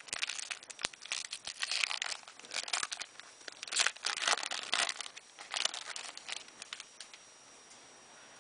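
Foil booster-pack wrapper crinkling as it is torn open and handled, a dense run of crackles that dies away about seven seconds in.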